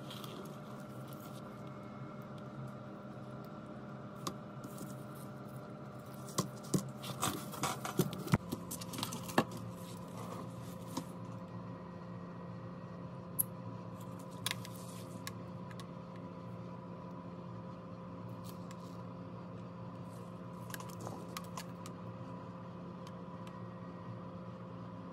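Light clicks and taps of small phone parts being handled: the logic board and flex cables of opened Huawei Mate 30 Pro phones. A cluster of sharper clicks comes about six to nine and a half seconds in, with a few single clicks later, over a steady background hum.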